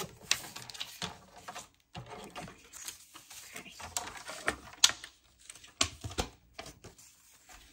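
Paper being cut on a sliding paper trimmer and handled: scattered clicks, taps and paper rustles, with a few sharper knocks about five to six seconds in as the trimmer is moved.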